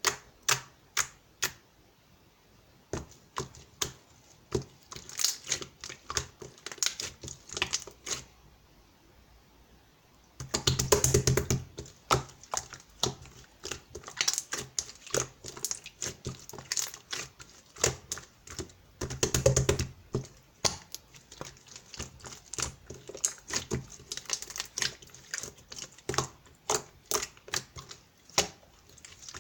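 Clear slime being pressed and stretched by hand, making rapid sticky clicks and pops, with two denser, louder runs of squishing about ten and twenty seconds in.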